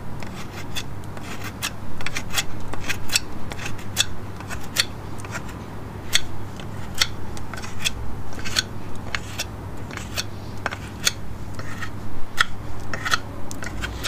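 Victorinox Forester Wood pocketknife cutting into soft wood in a string of short, sharp rasping strokes, about two or three a second. The wood gives easily.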